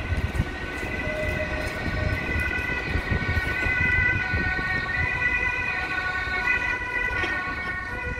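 GT8N articulated tram pulling out, giving off several steady high-pitched tones over a low rumbling running noise.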